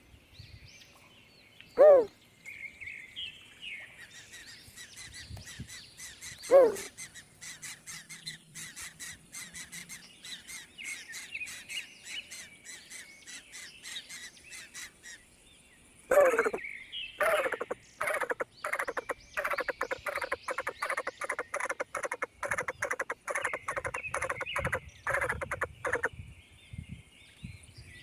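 Birds calling: high chirping for much of the time, two single loud calls in the first seven seconds, then a rapid run of loud repeated calls, several a second, lasting about ten seconds.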